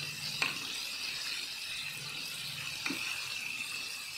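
Flour-coated chicken pieces deep-frying in plenty of hot oil, a steady sizzle, with metal tongs clicking against the pan twice, once near the start and once about three seconds in, as the pieces are turned.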